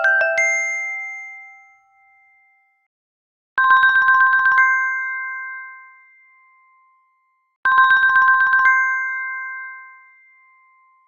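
Samsung Galaxy Watch4 ringtone, played twice: a fast run of repeated electronic chime notes for about a second, then a held chord ringing out and fading. At the start, the fading tail of a different, rising melodic tone.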